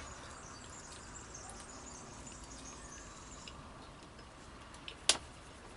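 Quiet room tone with faint high chirping in the background, and a single sharp click about five seconds in.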